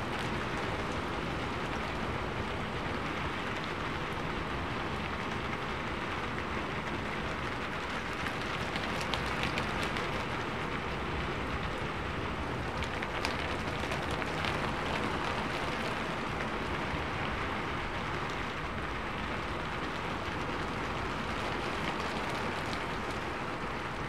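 Steady rain falling on a rooftop: an even hiss with scattered sharper drop hits.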